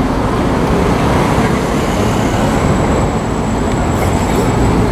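Steady street traffic noise, a dense low rumble with no break. A thin, faint high whine joins about halfway through.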